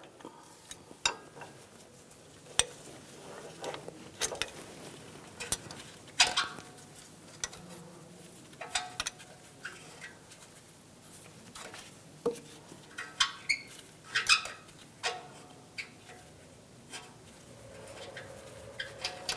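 Scattered light metallic clicks and clinks as an upstream oxygen sensor is unscrewed by hand from the exhaust manifold, its threads and wire turning. The clicks are irregular, a few of them ringing briefly.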